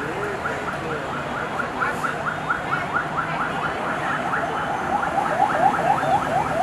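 A vehicle's electronic alarm sounding rapid rising chirps, several a second, in two pitches. The lower one gets louder from about four seconds in, over steady road traffic noise.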